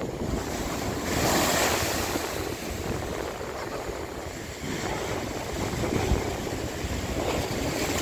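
Big cyclone-swell ocean waves crashing against a rock platform and washing across the rocks, surging louder about a second in and again around six seconds in. Wind buffets the microphone underneath.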